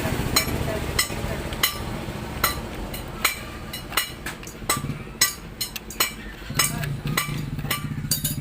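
Irregular sharp metallic clicks and taps, a couple a second, from metal tools and parts being handled during motorcycle engine reassembly. A steady low hum runs underneath and grows stronger about six and a half seconds in.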